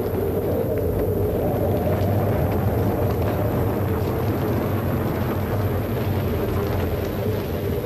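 Steady low rumbling noise with a hiss over it, unchanging throughout.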